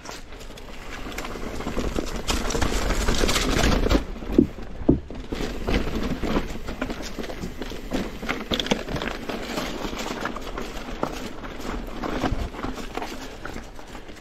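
Mountain bike rolling fast down a rocky dirt singletrack: tyres rushing over dirt and leaves, the bike clattering and knocking over rocks and roots. The rush is louder from about two to four seconds in, and a few sharp knocks come just after.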